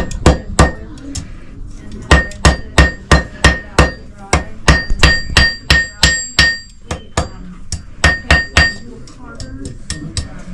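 Blacksmith's hand hammer striking hot iron on an anvil while forging a fire striker: runs of blows at about three a second, broken by short pauses, with the anvil ringing after many of the blows and lighter taps near the end.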